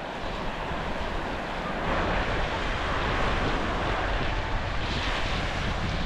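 Ocean surf washing onto a sandy beach, with wind buffeting the microphone; the wash grows louder about two seconds in.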